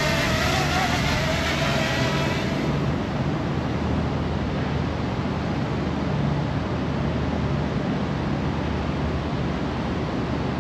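A DJI drone's propellers whine high and wavering, fading away about two and a half seconds in as the drone flies off. Under it, a steady rush of wind noise on the microphone with a low hum.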